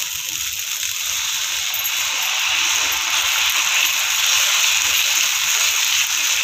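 Dosa batter sizzling on a hot tawa as a ladle spreads it outward in circles: a steady hiss that grows a little louder about four seconds in.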